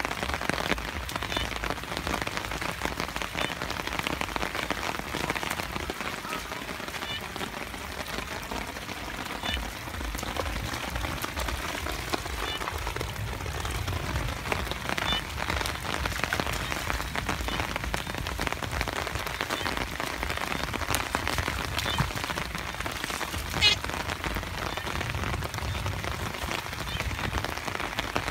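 Steady rain falling on wet ground and puddles, a dense patter of drops, with one sharper knock near the end.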